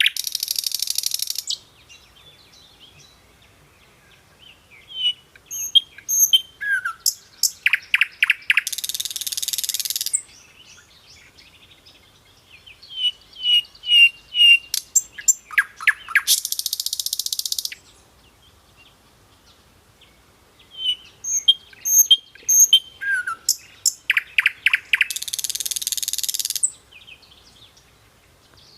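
Hill blue flycatcher (sikatan londo) singing. Each phrase is a run of quick whistled notes and sharp chips that ends in a harsh buzzing rattle of about a second and a half. Three such phrases come about eight seconds apart, with quiet gaps between them.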